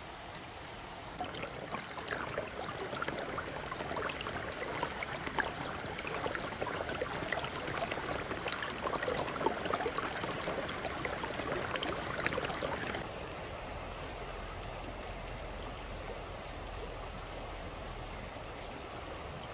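Stream water babbling and splashing over stones. About two-thirds of the way through it cuts off abruptly to a steadier, quieter outdoor hiss with a thin high tone.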